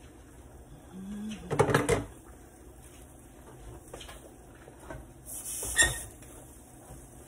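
Kitchen clatter: a cluster of knocks about one and a half seconds in. Near the end, a metal frying pan is shifted on the gas stove's grate with a brief scrape and a sharp clank.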